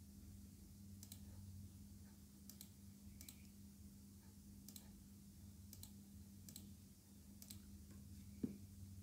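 Faint computer mouse clicks, about eight spread out at irregular intervals, over a low steady electrical hum; one short low thump near the end.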